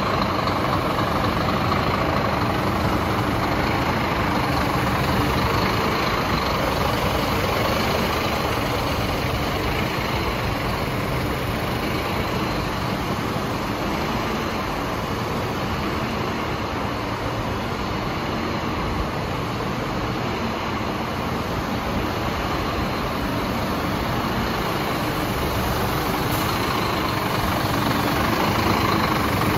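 Scania R400 tipper truck's 400 bhp diesel engine idling steadily, getting a little louder near the end.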